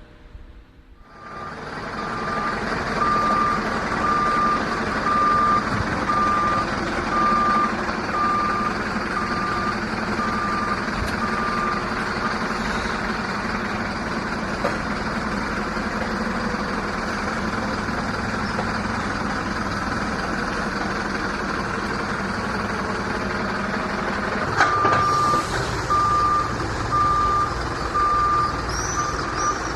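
Truck reversing, its backup alarm beeping at one steady pitch about once a second over the running engine. The beeping drops out after about twelve seconds, leaving only the engine. Near the end it starts again just after a sharp knock.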